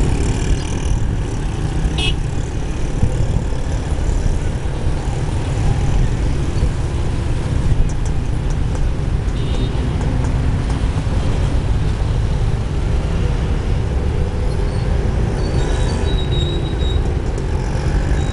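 Boeing 777-300ER's GE90 turbofan engines heard from a distance as the airliner rolls out and turns on the runway after landing: a steady low rumble.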